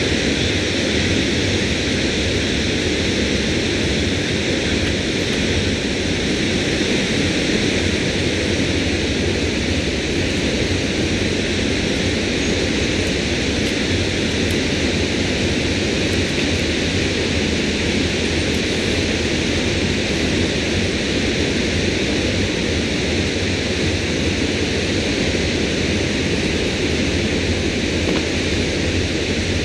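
Steady rush of water pouring over a dam spillway, with a steady low hum underneath.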